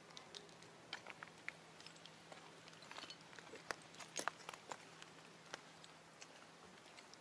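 Faint scattered clicks and crackles of dry leaf litter and twigs under a walking macaque, loudest around four seconds in.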